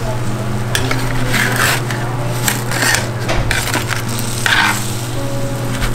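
Metal spatula scraping along a metal baking sheet as breaded baked fish pieces are pried up and flipped, in several separate scrapes.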